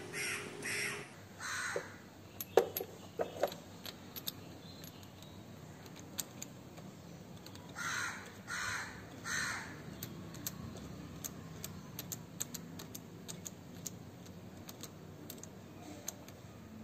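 A crow cawing, three harsh caws near the start and three more about eight seconds in. A few sharp clicks and faint ticks of metal on metal come from a spark plug being turned by hand into a scooter engine's cylinder head.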